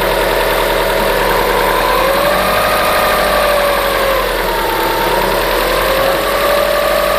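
Subaru Forester's flat-four engine idling with a knock from the timing-belt area that appeared after the belt and idler rollers were replaced. A whining tone runs through the engine sound, rising about two seconds in, falling back, then rising again near the end.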